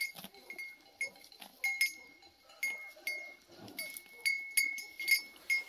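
A bell hanging from a cow's neck clanking irregularly, about two strikes a second, each ringing a clear high note.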